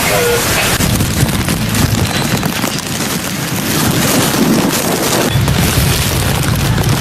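Storm wind buffeting the microphone over heavy rain: a continuous loud rush with low, rumbling gusts, heaviest in the last couple of seconds.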